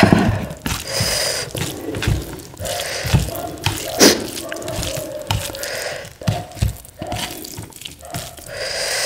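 Wet, squishy sounds of a hand mixing cooked rice with oily achari soya curry on a steel plate, in irregular clicks and smacks.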